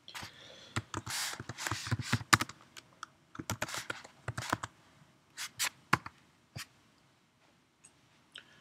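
Computer keyboard keys clicking as a command is typed, in quick runs of keystrokes with short pauses, thinning to a few faint taps near the end.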